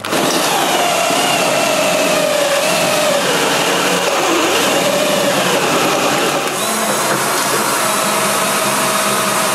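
Cordless drill boring through the steel garage-door track, its motor whine wavering as the bit bites into the metal. The sound dips briefly about six and a half seconds in, then the drilling goes on.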